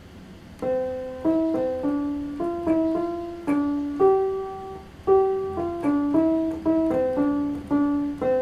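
Keyboard in a piano sound playing a single-line melody of short, evenly paced notes, starting about half a second in: the phrase of a movable-do melodic dictation exercise that is then sung back in solfège.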